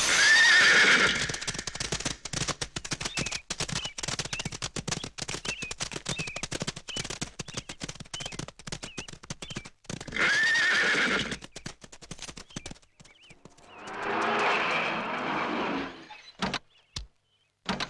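Horses whinnying over the fast clatter of many hooves cantering on sand: one whinny at the start and another about ten seconds in. After the hoofbeats die away there are a couple of seconds of steadier noise, then a few sharp clicks near the end.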